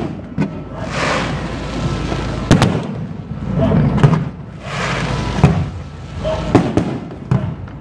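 Aerial fireworks shells bursting: a string of sharp bangs, a second or two apart and sometimes in quick pairs, with spells of rushing hiss between them.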